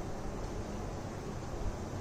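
Steady background hiss with a low hum underneath: room tone, with no distinct events.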